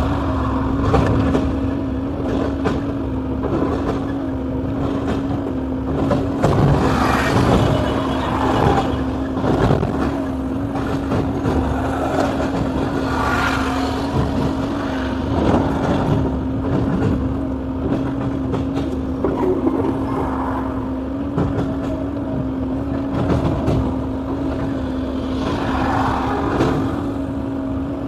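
Excavator's diesel engine running at a steady speed with a constant hum, swelling louder a few times as the machine works.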